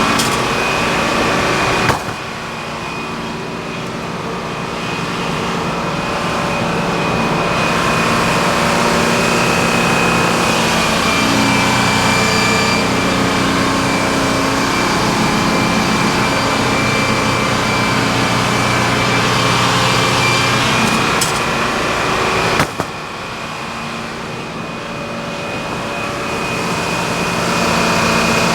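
Sawmill engine and saw running steadily with a constant high whine. A sharp click about two seconds in and again a few seconds before the end, each followed by a drop in level that slowly builds back up.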